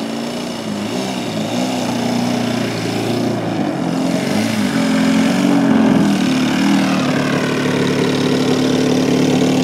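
The 3W 56iB2 twin-cylinder two-stroke petrol engine of a large model aerobatic plane runs at low throttle while the plane taxis on grass. Its pitch wavers up and down with small throttle changes, then settles steady for the last few seconds, and it grows louder as the plane comes closer.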